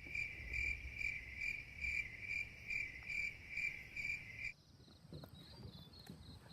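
Insects chirping in a steady rhythm of about two chirps a second, with a fainter, higher trill behind them. The main chirping stops abruptly about four and a half seconds in, and the higher trill carries on.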